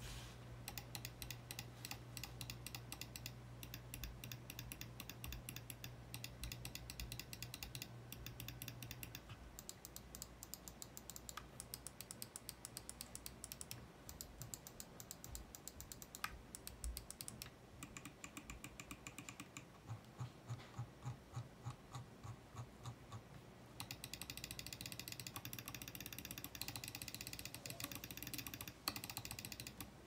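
SteelSeries Rival 650 wireless gaming mouse clicking in rapid runs as its buttons are pressed over and over. The clicks come thick early on and again over the last several seconds, and thin out in between.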